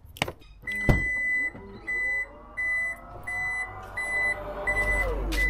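Toyota LandCruiser 300 Series power tailgate closing: a steady high warning beep repeats about seven times while the tailgate motor's whine rises, holds and winds down about five seconds in. A low hum sets in near the end.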